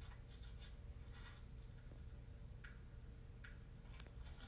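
Faint audio from a television: a few soft ticks over a low steady hum, with a brief high-pitched ding about one and a half seconds in that rings for about a second.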